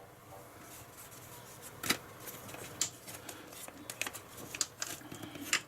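Scattered light clicks and soft rubbing of small plastic and metal parts of a PlayStation 3 Slim being handled and unclipped during disassembly, with the sharpest click about two seconds in.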